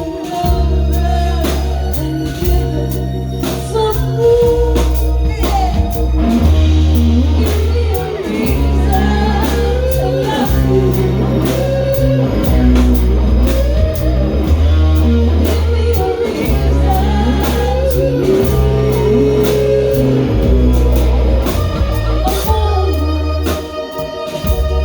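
A band playing a song: a singing voice over a loud, repeating bass line, with drums keeping a steady beat.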